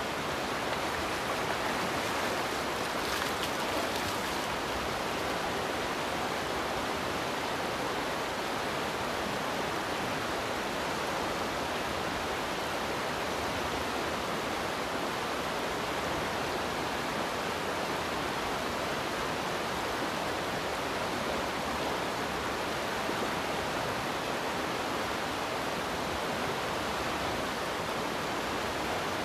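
Fast river water rushing over rocks in a shallow rapid: a steady, even rushing.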